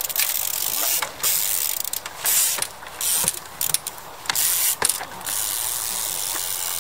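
Trials bike freewheel hub ratcheting in a loud, high buzz, coming in short bursts that start and stop as the rider pedals and coasts between hops, with a few sharp knocks.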